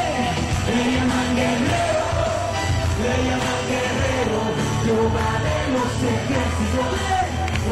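A church congregation singing a worship song together over band accompaniment, the melody moving in long held notes.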